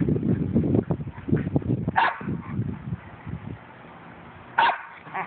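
Two dogs play-fighting: low, rough growling for the first few seconds, with a sharp bark about two seconds in and another near the end.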